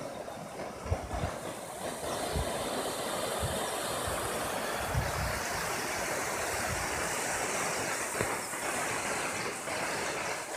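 Rushing river water, a steady hissing wash, with low thumps and rumble of wind buffeting the microphone.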